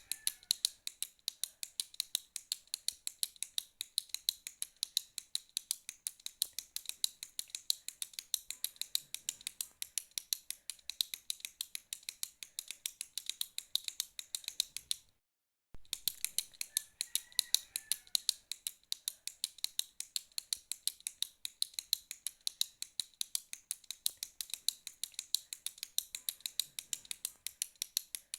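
Retractable pen clicking rapidly and repeatedly, several sharp clicks a second. The clicking breaks off for about half a second of silence about halfway through, then resumes.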